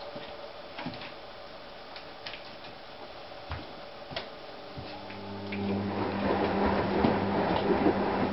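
Dog's claws tapping and clicking on the wooden floorboards as it turns around on its bedding before lying down. About five seconds in, a steady low drone sets in and grows louder, becoming the loudest sound.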